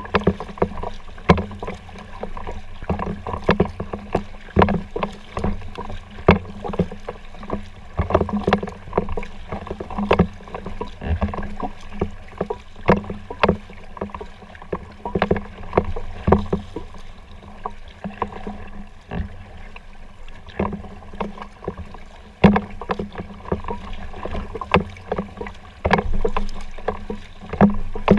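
A folding kayak being paddled: paddle strokes dipping and splashing, with a steady run of irregular sharp knocks and clicks.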